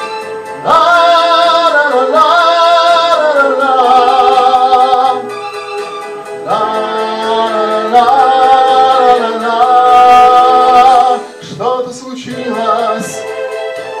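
A man singing long wordless held notes into a microphone over a karaoke backing track, in phrases of a few seconds with short breaks between them.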